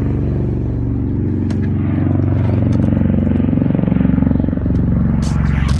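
A vehicle engine running steadily, with a low, even hum and a few light clicks.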